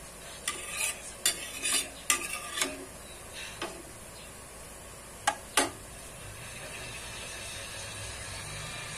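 A metal utensil scraping and clinking against a frying pan and a ceramic plate as cooked chicken feet are lifted out: a run of clinks in the first few seconds, then two sharp knocks a little after five seconds.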